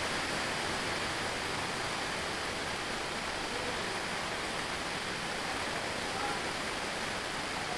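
Steady, even hiss of background room noise, with no change in level.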